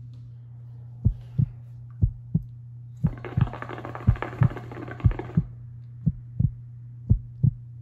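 Heartbeat sound effect: a steady lub-dub about once a second over a low hum. About three seconds in, a hookah bubbles for about two seconds as it is drawn on.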